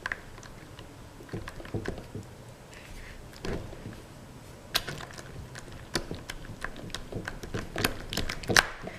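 Spatula stirring sticky clear-glue slime in a bowl while the activator is worked in: irregular wet clicks and squelches, coming more often in the second half.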